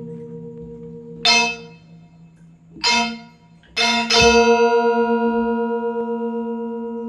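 Balinese gong kebyar gamelan playing sharp unison accents, struck together on its bronze metallophones about a second in, near three seconds and twice near four seconds, each left to ring out in long, wavering bronze tones. The last accent has a deep low stroke under it.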